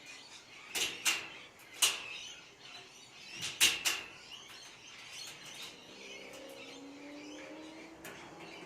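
Sharp metallic clicks and clacks of a door lock and its handle being worked while it is tested to see whether it locks, about six in the first four seconds. A faint, drawn-out, slightly rising tone follows in the second half.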